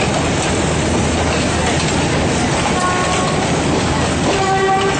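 Passenger train running past close by, with a steady loud rumble and rattle of its wheels on the track. Two short horn toots sound, about three seconds in and again near the end.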